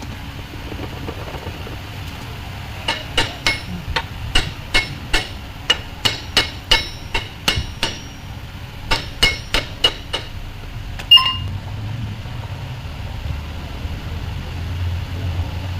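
Hammer striking metal: about twenty sharp, ringing blows in a quick, uneven series, then one louder ringing strike about a second later.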